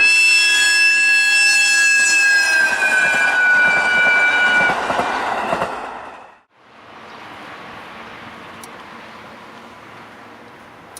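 Diesel railcar train (JR Hokkaido Kiha 40 and Kiha 54 series) sounding its horn in one long blast of nearly five seconds. The pitch drops partway through as the train passes. The rumble of the train then dies away about six seconds in, leaving a faint steady rush.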